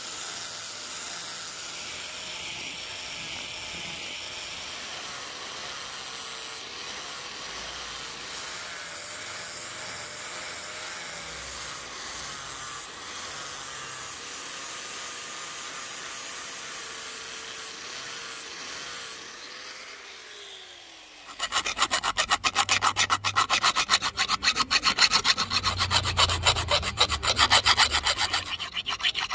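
Angle grinder running with its disc against the steel bit of a Keen Kutter axe head, its motor tone wavering slightly, then switched off and winding down about twenty seconds in. Then a hand file rasps back and forth inside the axe head's eye in rapid, even strokes, louder than the grinding.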